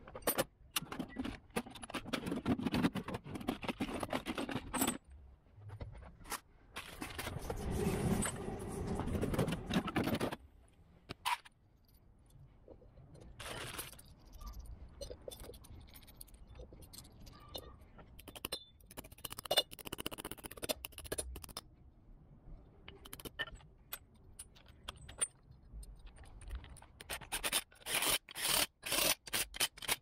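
Metal tools and sockets clinking, rattling and scraping as they are handled, in uneven bursts, with a quick run of sharp clicks near the end.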